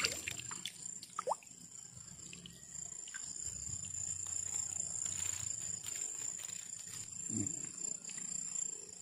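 Steady high-pitched drone of night insects, with soft splashes and sloshing of water from wading in a shallow river.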